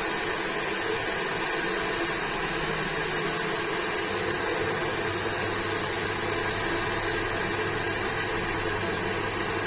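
Repaired induction cooker running steadily while it heats water: a constant, even whir and hiss with no starts or stops.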